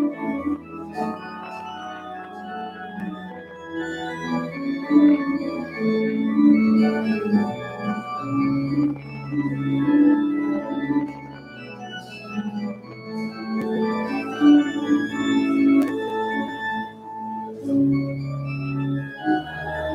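Organ playing slow, held chords over bass notes that change every few seconds.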